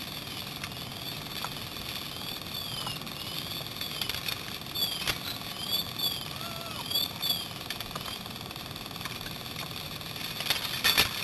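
An engine running steadily, with scattered sharp pops and clicks over it.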